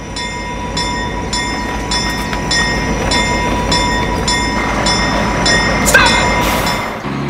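Railroad crossing warning bell ringing rapidly, about two or three strokes a second, over a steady low train rumble. A brief rising chirp sounds about six seconds in.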